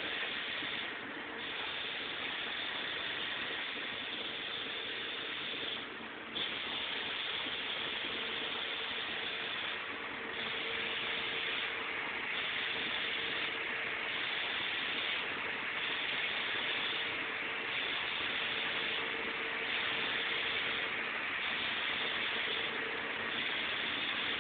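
Sullair 16-100 air compressor running steadily: an even hiss over a steady hum, the upper part of the hiss dipping briefly every second or two.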